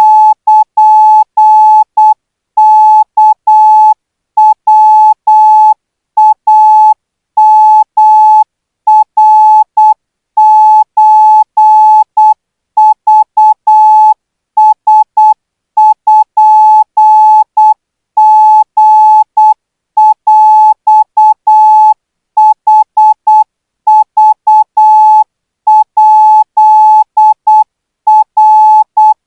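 Thai Morse code practice signal at 12 words per minute: a single steady beep keyed on and off in short dots and longer dashes, grouped into characters by brief gaps.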